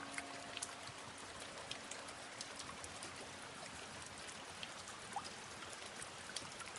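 Light rain falling: a soft, even hiss with scattered small drop ticks.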